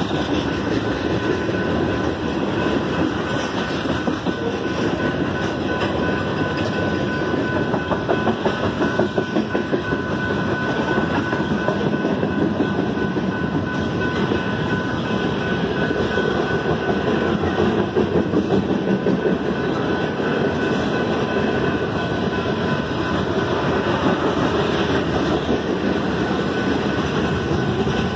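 Freight train of tank cars rolling past: a steady rumble of steel wheels on rail, with stretches of rhythmic clickety-clack as the wheels cross rail joints. A faint steady high tone runs underneath.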